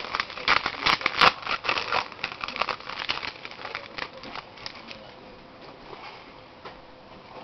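A trading-card pack wrapper being torn open and crinkled, with cards shuffled in the hands: a quick run of crackling clicks, busiest over the first four seconds and then quieter.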